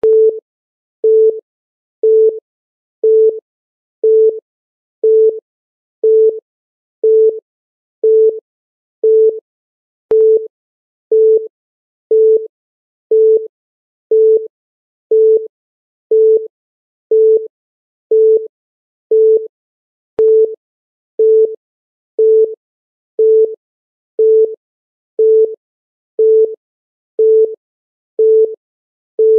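Countdown timer's electronic beep sound effect: a short mid-pitched beep repeating evenly once a second, one beep for each second counted down.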